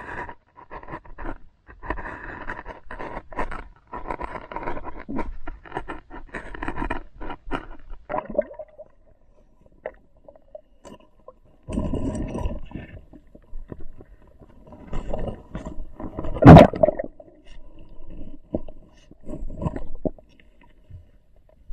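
Muffled underwater scraping and knocking of a submerged camera and hands rubbing and bumping against river rock, in uneven spells, with one sharp knock about two-thirds of the way through.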